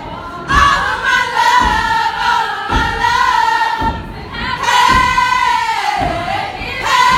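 A group of women stepping: singing a chant in unison, with held, bending notes, while stomping on a stage about once a second.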